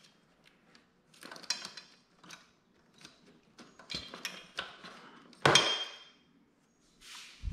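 Irregular clicks, clinks and scrapes of small metal parts and tools being handled while working on a kids' electric quad's battery compartment, with one louder clank that rings briefly well into the second half.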